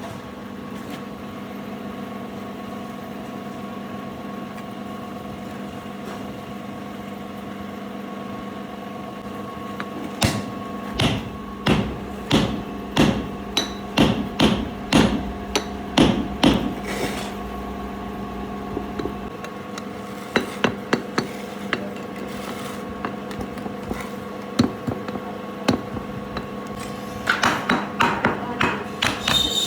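Hammer blows in a metalworking shop over a steady machine hum. The strikes start about a third of the way in, come in a run of roughly one to two a second, thin out, then return as a quick flurry near the end.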